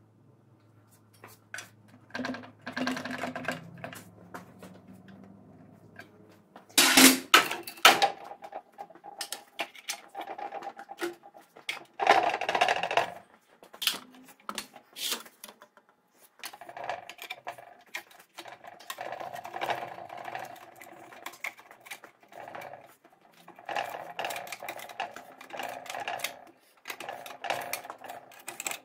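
Steel clinks and clanks of tools and gearbox parts as a ZF 16S 151 truck gearbox is taken apart, with two loud clatters about 7 and 12 seconds in and stretches of rapid clicking in the second half.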